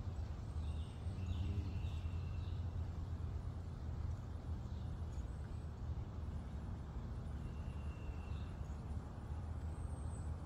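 Outdoor background: a steady low rumble with a few faint, short bird chirps, once early on and again near the end.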